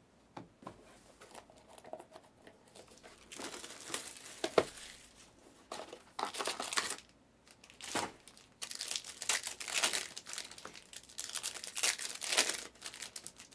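Trading-card pack wrappers being torn open and crinkled by hand, in irregular crackly bursts that start a few seconds in, with one sharp snap along the way.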